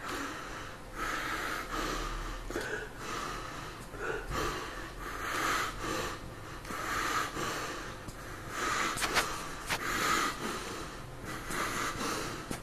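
A man's repeated noisy, breathy intakes of air, about one every second, at an even moderate level: the build-up breaths before a sneeze.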